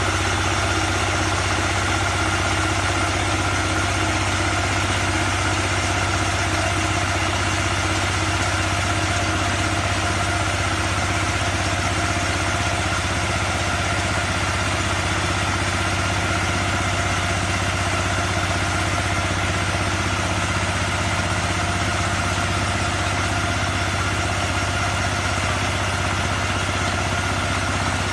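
Diesel engine of a 4LBZ110 mini combine harvester (22 hp) running at a steady speed, an even low hum without changes in pitch.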